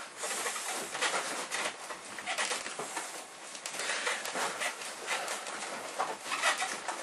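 Elastic bandage being wound around a leg over a memory-foam wrap: irregular soft rustling and swishing of the fabric as each turn is pulled snug.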